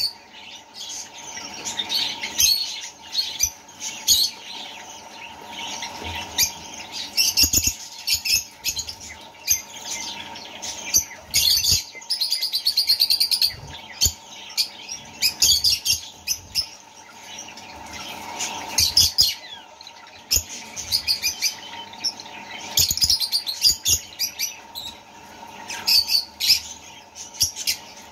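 Small parrots chirping over and over in short, high calls, with a fast run of chirps about halfway through, over a faint steady hum.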